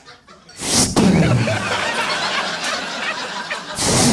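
Comedy-club audience laughing hard. The laughter breaks out after a short blast of noise into the microphone about a second in, and another comes near the end: the comedian's mouth sound effect of something swinging through the air.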